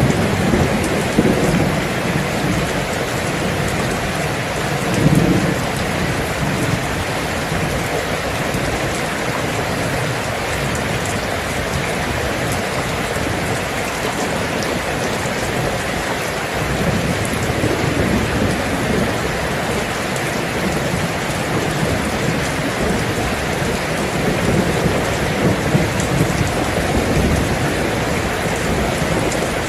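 Steady heavy rain hissing, with low thunder rumbling up a few times, about five seconds in and again a little past the middle.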